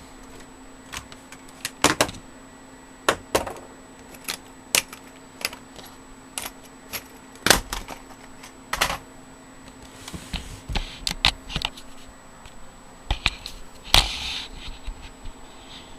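Irregular sharp clicks and clacks of plug connectors and cables being pushed into the back of a desktop computer, roughly one every half second to second, a few of them louder knocks, over a faint steady hum.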